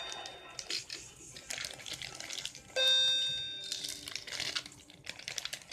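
A bell-like chime sounds once about three seconds in and fades over about a second, with short noisy rustles before and after it.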